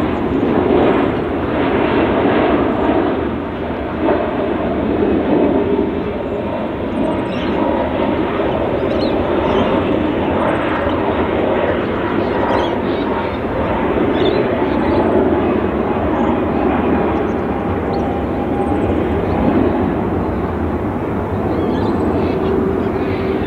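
Qantas Airbus A330-300 jet airliner's twin turbofans on final approach to land, a steady jet rumble. A faint whine sinks slowly in pitch through the middle.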